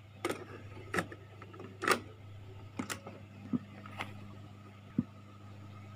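Cassette deck playing the blank lead-in of a pre-recorded tape: a steady low hum and tape hiss, broken by several irregular clicks and pops, the loudest about two seconds in.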